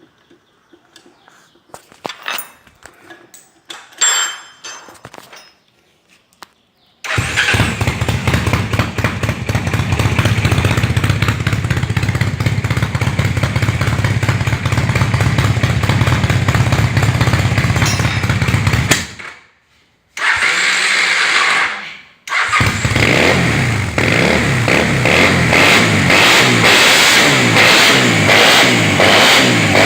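Honda CB chopper motorcycle engine. After a few light clicks and knocks, it starts suddenly about seven seconds in and runs loud and steady. The sound cuts out twice briefly past the middle, then the engine runs on with revs rising and falling near the end.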